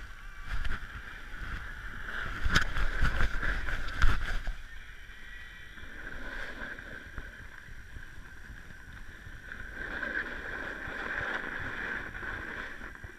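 Snowboard sliding over packed snow: a continuous scraping hiss with a low rumble of wind on the microphone. Two louder bumps come about two and a half and four seconds in.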